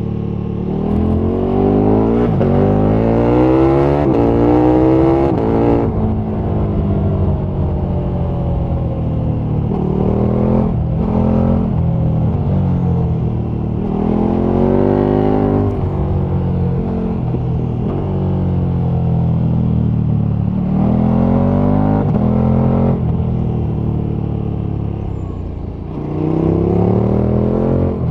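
KTM 1290 Super Duke R's V-twin engine under way, revving up and falling back several times as the bike accelerates. The longest rise runs over the first six seconds, with shorter climbs near 10, 15, 22 and 27 seconds in.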